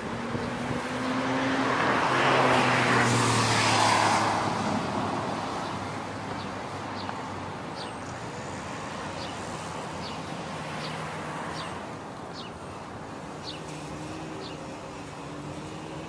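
A car passing by: engine and tyre noise swell to a peak about two to four seconds in and fade back into steady traffic noise.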